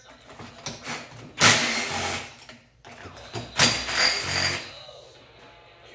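Cordless power driver running in two short bursts of about a second each, backing fasteners out of a Stihl 500i chainsaw's powerhead. Light clicks of handling come in between.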